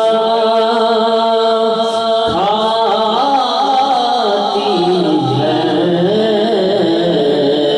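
A man singing a naat, an Urdu devotional poem, into a microphone. He holds one long note for about two seconds, then moves into a winding, ornamented melody.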